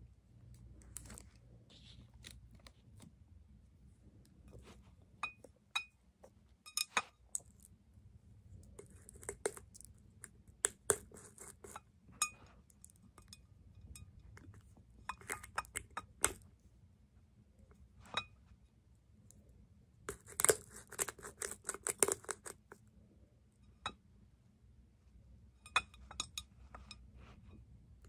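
Glass jars and a glass bottle being handled and tapped: scattered sharp clicks and clinks, coming in small clusters and loudest about twenty seconds in.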